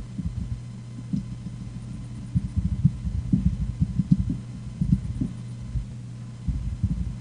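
Computer keyboard being typed on in irregular runs of soft, dull taps, over a steady low hum.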